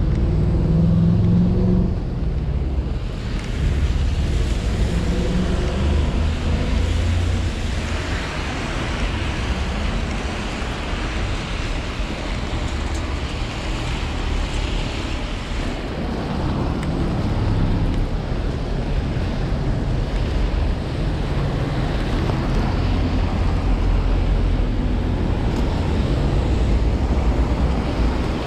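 Wind buffeting the body-worn camera's microphone as a low rumble, over the hiss of a rain-wet street. The hiss swells about eight seconds in and drops back a little past halfway.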